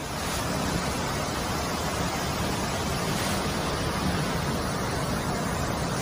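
Steady rushing noise of floodwater pouring through a flooded street.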